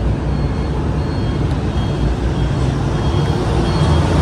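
Steady low road-vehicle rumble, with faint short high tones recurring about once a second.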